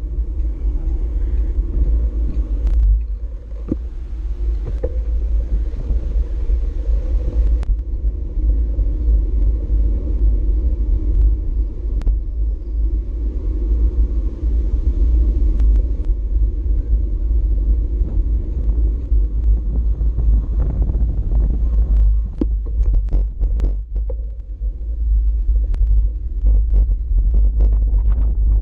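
Steady low wind rumble on a riding cyclist's GoPro Hero4 Session microphone, mixed with road noise and scattered clicks and rattles that grow more frequent near the end.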